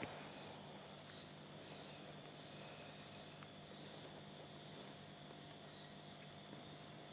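Crickets chirping in a steady, high, fast-pulsing trill: a night-time insect chorus.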